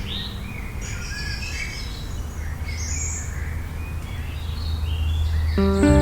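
Several birds chirping and calling in short whistled notes that rise and fall quickly, over a low steady musical drone. Sustained music notes come in near the end.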